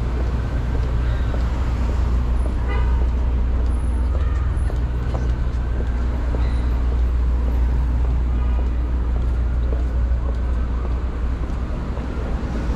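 City street traffic: a steady low rumble of engines from the cars along the curb, with a short horn toot about three seconds in.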